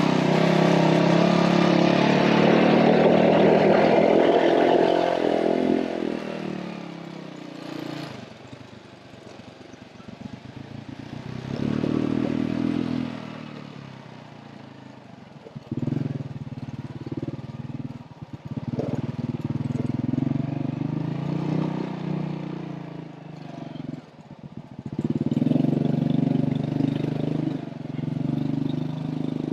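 A vehicle engine running, rising and falling in loudness several times as it speeds up and slows down, loudest in the first few seconds.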